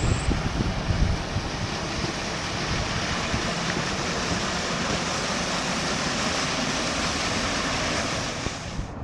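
Wind gusting against the microphone over a steady rushing hiss, with the wash of an SUV driving through street-deep floodwater and throwing up spray.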